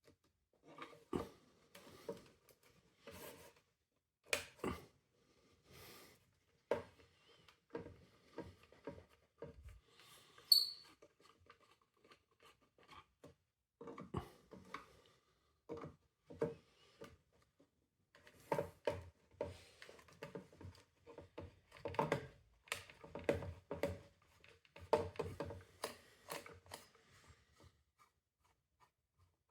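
Small hand-handling sounds from taking apart the plastic parts of a window vacuum cleaner: scattered clicks, taps and light rattles, busiest in the second half, with a brief high squeak about ten seconds in.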